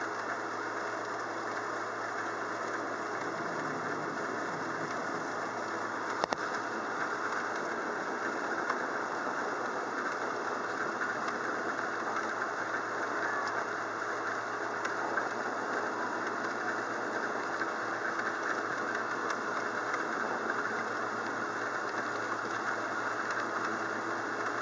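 Steady rain from a thunderstorm that is easing off, a continuous even hiss with a faint low hum beneath it. There is one short sharp click about six seconds in.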